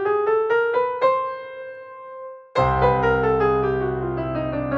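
Digital keyboard with a piano sound playing a chromatic scale note by note. A stepwise run climbs to its top note about a second in, and that note is held and fades. Then, about two and a half seconds in, a low bass note is struck and the scale steps back down.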